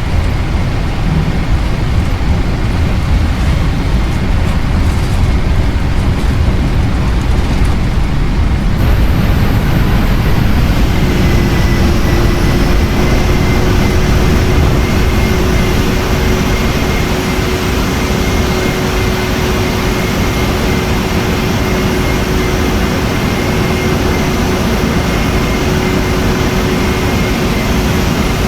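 Boeing 737-900's CFM56 jet engines running at high power, heard as a loud, steady roar inside the cabin during the takeoff. About nine seconds in, the noise brightens, and from about eleven seconds a steady engine whine joins it.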